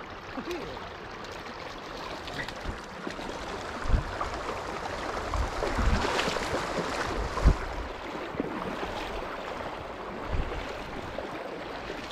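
Shallow river running over rocks: a steady rush and trickle of flowing water, with several dull, low thumps scattered through it.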